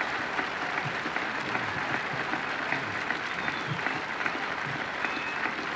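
A crowd applauding steadily, dense clapping with no let-up.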